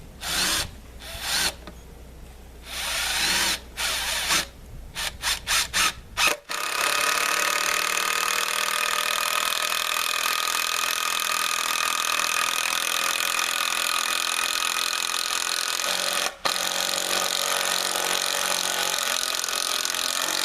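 Impact driver run in several short bursts, then run steadily for about ten seconds, stopping briefly once and running on. A change in its sound is the sign that the fastener it is driving is getting tight.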